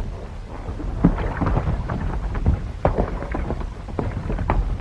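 Horses' hooves thudding irregularly on dirt as riders move off, over a steady low rumble and hiss from the old film soundtrack.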